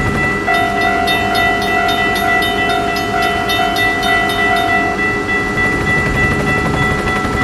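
Train passing: a steady low rumble with a regular clatter, under a long held horn-like chord of several steady tones. One tone of the chord drops out about five seconds in.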